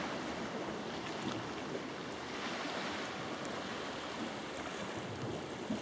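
Steady, even outdoor hiss of wind and sea.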